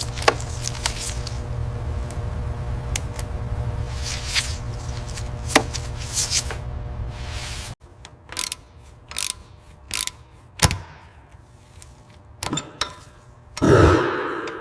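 Workshop tool sounds: scattered metallic clicks and knocks over a steady low hum that cuts off suddenly about eight seconds in. After that come a few separate clicks and a heavier knock near the end.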